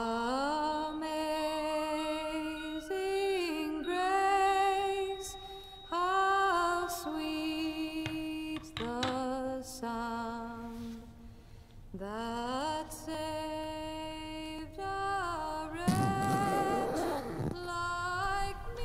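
A slow, wordless sung melody: a voice humming or singing long held notes, each sliding up into its pitch. About three-quarters of the way through there is a brief rougher, noisier passage.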